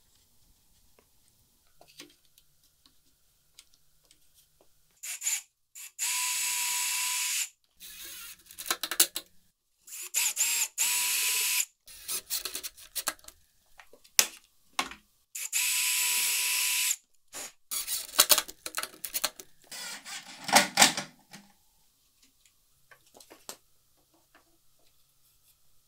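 Cordless drill running in three bursts of about a second and a half each at steady speed, drilling countersunk pilot holes and driving screws into cedar boards, with a shorter run and small clicks and knocks between.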